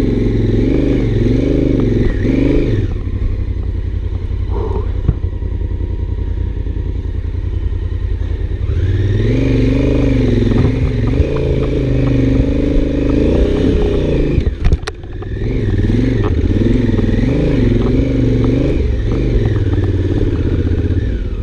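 Honda Africa Twin's parallel-twin engine pulling up a steep trail, the revs rising and falling in surges as the throttle is worked, with a stretch of lower, steadier revs between. About fifteen seconds in, the sound drops out briefly with a sharp click before the engine picks up again.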